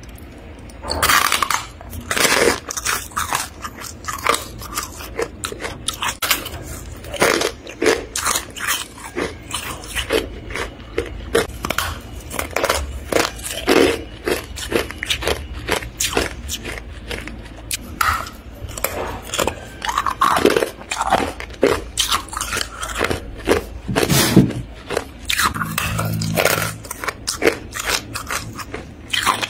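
Hard freezer frost being crunched: a dense, irregular run of sharp, crisp crunches.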